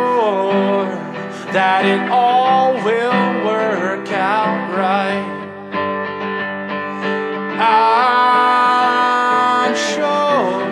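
A song: a singer's voice over guitar accompaniment.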